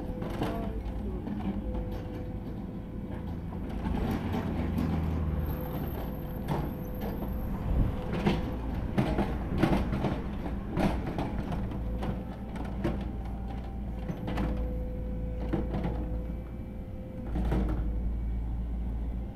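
A steady low vehicle rumble with many irregular knocks and clunks, and a faint steady tone that comes and goes.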